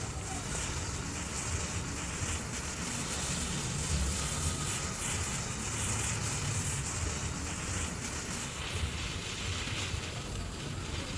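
A row of wooden matchsticks burning one after another in a chain, with a steady hiss, and a low wind rumble on the microphone underneath.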